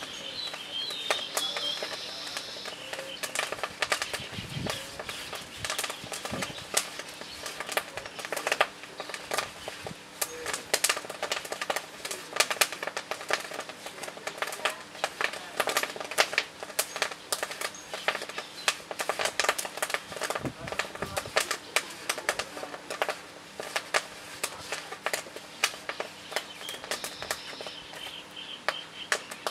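Fire of dry fuel crackling, with dense, irregular sharp snaps and pops, some of them loud. Birds chirp briefly near the start and again near the end.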